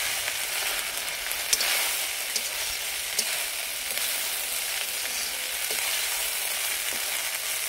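Yellow parboiled rice sizzling in hot ghee in an iron kadai as a steel spoon stirs it: a steady high hiss with a few sharp clicks scattered through it.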